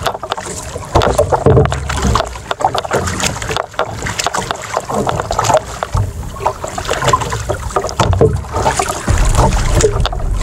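Wind and choppy waves around a small wooden outrigger boat at sea, with water slapping and splashing irregularly. Wind gusts buffet the microphone with a heavy low rumble about a second and a half in and again near the end.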